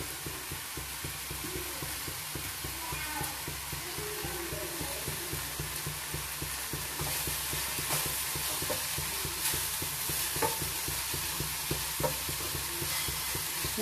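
Carrot, onion and grated coconut mixture frying in a pan with a steady sizzle, stirred and scraped with a wooden spatula. A few light knocks of the spatula on the pan come through.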